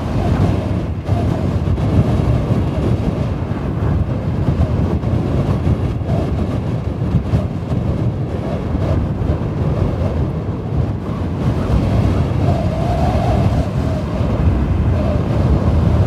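Strong wind blowing hard with a deep, steady rumble and a faint howl that wavers up and down in pitch, most noticeable about three-quarters of the way through.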